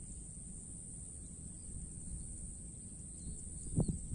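Rural outdoor ambience: a steady high-pitched insect chorus over a low, uneven rumble, with one short knock near the end.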